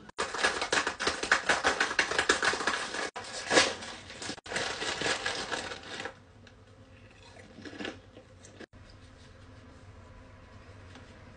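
Loud crinkling and crackling of a plastic snack wrapper being opened and handled, lasting about six seconds and then stopping suddenly. Faint rustles follow.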